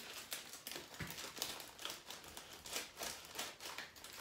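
Faint crackling and clicking of plastic Peeps packaging being handled and pried open to get a marshmallow bunny out, with a soft knock about a second in.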